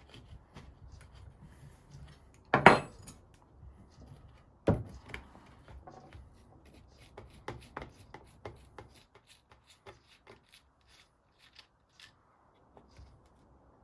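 Metal clicks, scrapes and knocks of hand tools and parts as a worn bicycle rear hub is taken apart, with two loud knocks a few seconds in; the clicks grow sparser in the second half.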